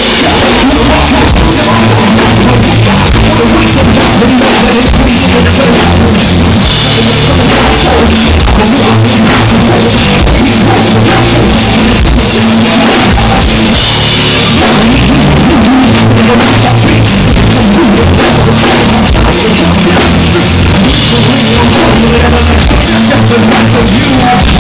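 Live rock band playing loudly: drum kit, electric guitar and a singer, heard from among the crowd.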